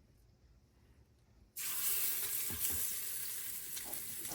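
Seasoned chicken thighs sizzling in hot oil in a pan, searing. The sizzle starts abruptly about a second and a half in, after near quiet, and then holds steady.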